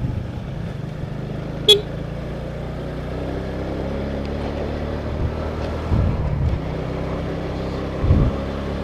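Small motor scooter engine running steadily at cruising speed, with road and wind noise. A short sharp click a little under two seconds in, and two low thumps around six and eight seconds.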